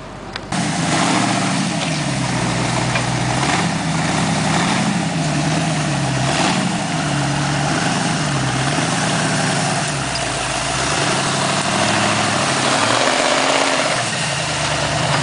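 Rock-crawling buggy's engine running close by, its pitch rising and falling over and over as the throttle is worked through the boulders. It starts abruptly about half a second in.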